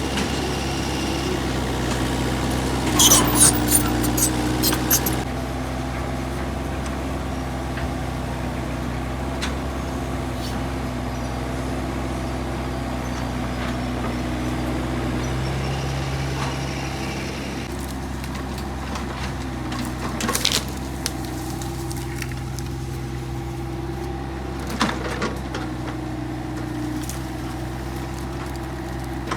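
Excavator diesel engine running steadily, with a quick run of sharp metallic clanks about three seconds in and a few single knocks later on.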